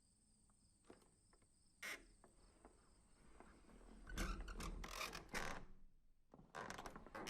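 Crank-operated window being wound shut: the crank's gear mechanism clicks and rasps in short spells of turning. A few faint clicks come first, then louder runs of clicking about four seconds in and again near the end.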